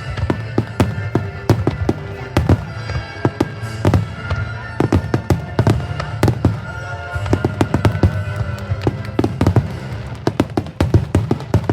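Fireworks display shells bursting in quick, irregular succession, many sharp bangs and crackles, over music played for the show.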